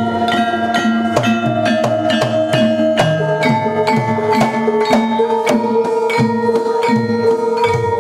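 Javanese gamelan ensemble playing. Metallophone keys are struck with mallets at an even pace of about three strokes a second, each note ringing on under the next, with gongs in the ensemble.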